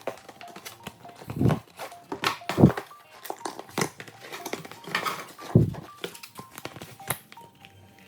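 A product box and its packaging handled and opened: scattered clicks and crinkles of cardboard and plastic, with a few dull thumps.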